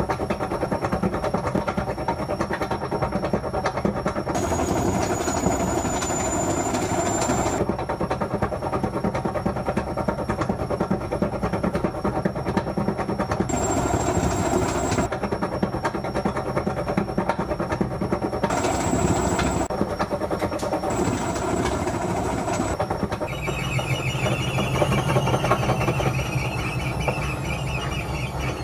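Whirlpool washing machine's drum on its spin cycle: a steady rumble and rattle with a high motor whine. Several times the whine changes abruptly. Near the end the whine's pitch falls.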